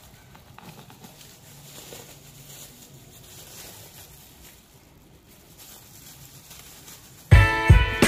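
Faint, soft rustling and tearing as the sticky flesh and fibres of a ripe jackfruit are pulled apart by gloved hands. Near the end, loud music with plucked strings and heavy low beats cuts in suddenly.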